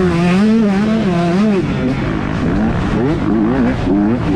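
125cc two-stroke motocross bikes racing, engines revving up and down with the throttle. One bike dominates at first; from about halfway in, several bikes are heard at once, their pitches rising and falling across each other.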